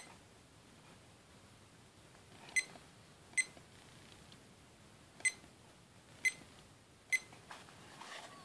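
FanJu FJ3523 digital alarm clock giving short, high electronic beeps as its buttons are pressed, about six at irregular intervals, with faint handling rustle near the end.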